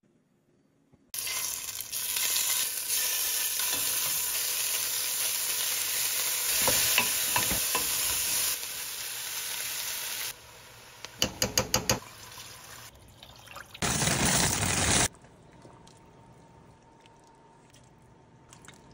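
Chicken wings sizzling as they sear in a hot stainless-steel pot: a loud steady hiss that starts about a second in and runs for some nine seconds. Then a quick run of clicks, another short loud hiss, and a low quiet simmer near the end.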